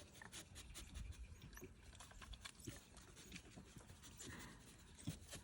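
Near silence with faint scattered clicks and soft ticks from coatis moving about and feeding.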